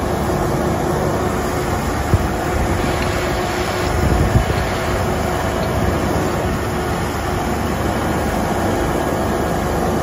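Steady drone of shotcrete equipment at work: a trailer-mounted Putzmeister concrete pump and a portable air compressor running, with a mixer truck feeding the pump. A short knock about two seconds in and a slightly louder low rumble around four seconds.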